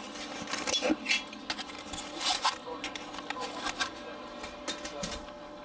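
Hands handling the TV's tuner and cleaning things: scattered small clicks, scrapes and rustling, with a louder rustle about two seconds in.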